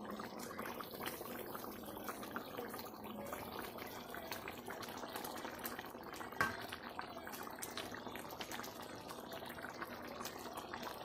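Thick mutton curry with coconut paste boiling in a steel kadai: a steady crackle of small bursting bubbles, the curry nearly done. One sharper knock comes about six seconds in.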